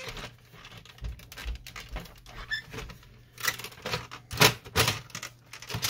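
Plastic clicks and knocks of a laser printer's top cover and its latches being unclipped and worked loose by hand: a few light clicks, then several louder sharp knocks in the second half.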